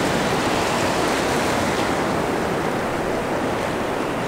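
Ocean surf washing in over a sandy beach: a steady rush of breaking waves and foamy wash.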